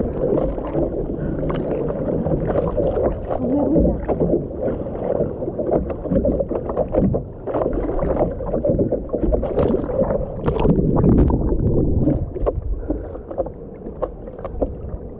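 Surfboard paddling: hands stroking the water in a run of splashes, with water sloshing over the board close to a camera mounted on its nose.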